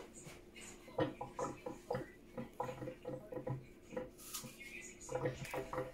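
Quiet handling sounds: plastic packaging rustling and light knocks, with faint voices behind.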